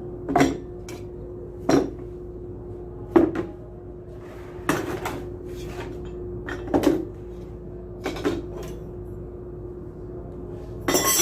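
Metal submersible-pump parts knocking and clinking as they are handled and set down: about a dozen separate knocks, with a louder clatter near the end. A steady hum runs underneath.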